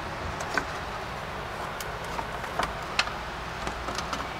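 Scattered sharp clicks and snaps as a plastic push clip is cut off with diagonal cutters and the plastic splash shield is worked loose, over a steady low background hum.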